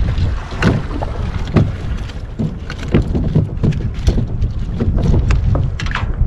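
Wind rumbling on the microphone, with choppy water slapping against a fishing kayak's hull in many short splashes.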